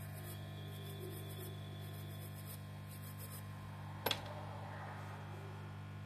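Steady low electrical hum, with one sharp click about four seconds in.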